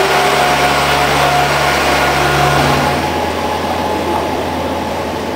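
JR KiHa 47 diesel railcar's engine running as the train moves past along the platform, its steady engine tones dropping away about three seconds in.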